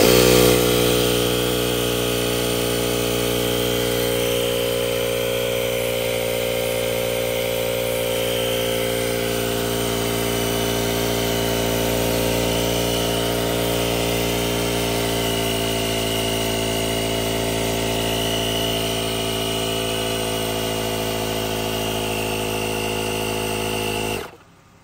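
Portable car-powered tyre inflator's compressor switched on, running steadily as it pumps air into an under-inflated car tyre, then switched off and cutting off suddenly near the end.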